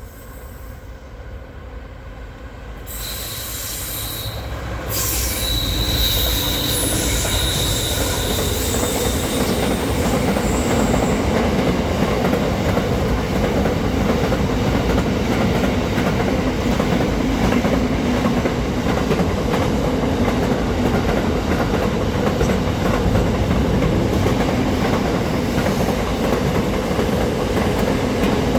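Train approaching and passing on the rails, getting louder over the first five seconds, then a steady loud rumble of wheels on track. A high wheel squeal sounds a few seconds in.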